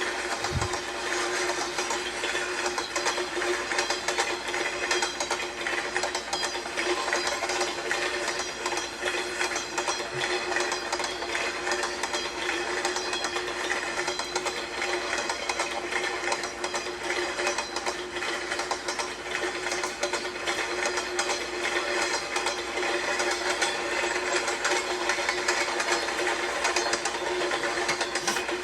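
Train sound effect: a fast, unbroken clickety-clack of train wheels clattering over rail joints, with a steady hum underneath.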